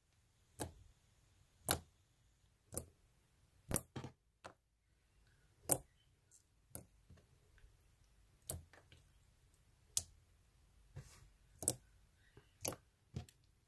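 Sharp clicks and pops from slime being played with, roughly one a second, some coming in quick pairs.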